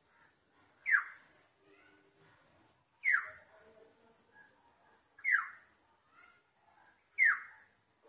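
Black-hooded oriole giving four harsh, falling calls, about two seconds apart, with faint twittering of other birds between them.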